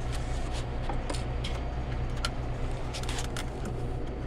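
Ice machine running with a steady low hum from its compressor, with scattered light clicks and scrapes of plastic parts being handled and fitted back into the machine.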